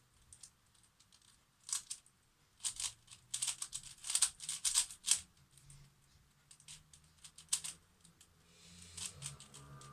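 Maylong 5x5 speedcube being turned by hand, its plastic layers clicking and clacking in irregular runs of quick turns. It is freshly lubricated with Citrea and still a bit locky.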